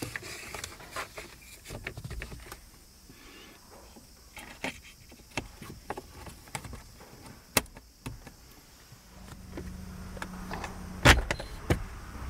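Plastic clicks, taps and scrapes as a new cabin air filter is slid into a Toyota Prius's filter housing and its cover is clipped back in place. A low hum comes in late, and near the end there is a loud sharp click as the glovebox is shut.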